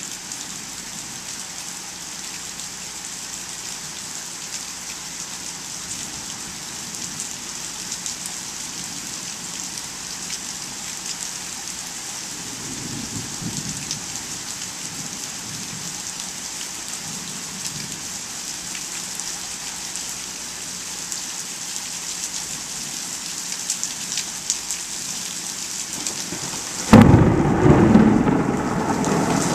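Steady rain falling, with soft rumbles of thunder about halfway through. Near the end a sudden, loud clap of thunder breaks in and rumbles on.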